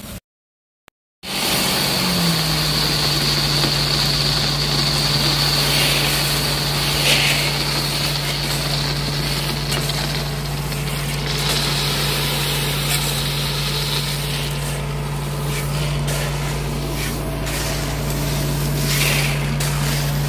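Small engine of a tracked mini dumper running steadily, its pitch dropping and then settling about two seconds in, while crushed stone slides and rattles out of its tipped bucket down a steel ramp. The engine starts after a brief silent gap near the start.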